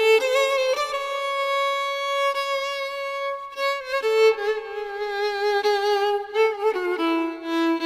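Background music: a violin playing a slow melody of long held notes with vibrato, stepping down in pitch near the end.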